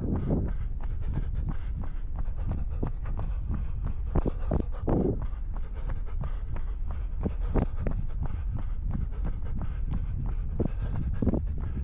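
A runner's footsteps in snow at an easy pace, with the runner's breathing heard now and then.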